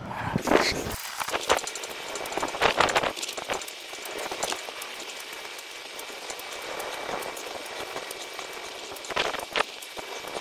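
Brief crunching sounds of hands and feet landing in snow during burpees, over a steady hiss. A few come in the first three seconds, one comes in the middle, and two come close together near the end.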